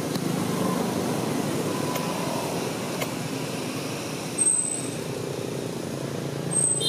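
Steady outdoor background noise with a low rumble. Two short, thin high chirps sound, one about four and a half seconds in and one near the end.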